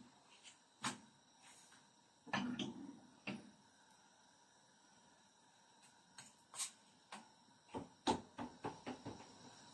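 Scattered knocks and clicks of a knife against a frying pan and a wooden dough board. There is a duller thump about two and a half seconds in and a quick run of sharp taps near the end.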